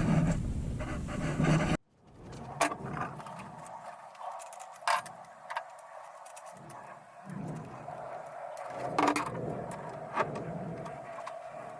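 Light scattered clinks, knocks and scrapes of metal parts being handled, over a steady faint hum. The sound cuts off abruptly about two seconds in, then resumes more quietly.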